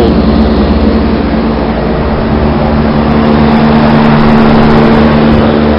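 Outdoor air-conditioning condensing unit running steadily: the compressor's hum, with a strong steady tone over lower hum lines, and the condenser fan's rushing air. The unit is cooling, its suction line cold.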